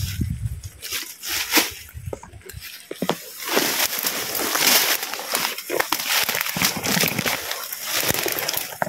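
Dry leaves and twigs rustling and crackling as undergrowth is pushed through and handled, with many small irregular snaps.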